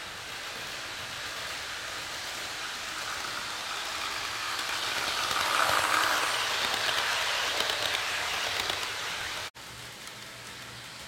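HO scale model passenger train running past on the track, a rolling rush that grows to its loudest about six seconds in as the coaches pass close, then eases. It cuts off abruptly near the end, and the rolling sound starts again more quietly.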